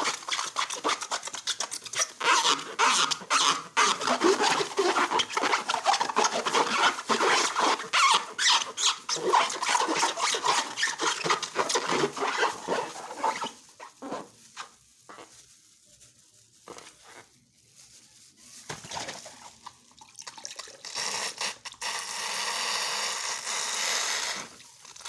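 Slime being squeezed and stretched by hand, with dense sticky crackling and squelching for about the first half. After that come sparser squishes, then a steadier hissing sound near the end.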